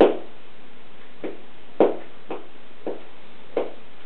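A Golden Retriever's tail thumping as she wags it: about six soft thumps at uneven intervals, two of them louder.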